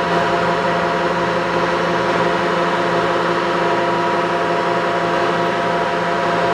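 Mori Seiki MR1500G toolroom lathe running under power: a steady mechanical whine of several even tones over a hiss, from the motor and the geared headstock.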